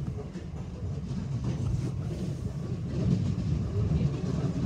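Running noise heard from inside a Southeastern Class 465 Networker electric train in motion: a steady low rumble of wheels on rail with faint scattered ticks, growing a little louder.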